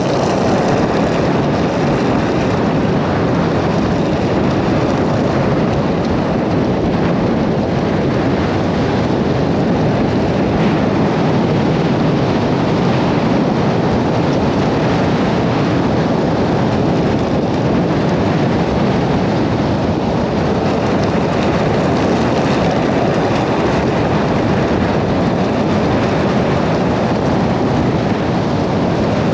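Strong wind rushing and buffeting the microphone: a loud, steady roar of noise with no let-up.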